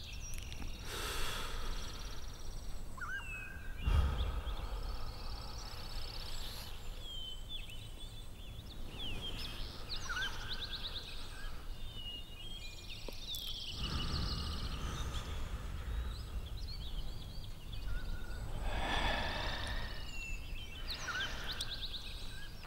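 Open-countryside ambience: birds chirping and calling here and there over a steady outdoor hiss, with low wind rumbles a few times.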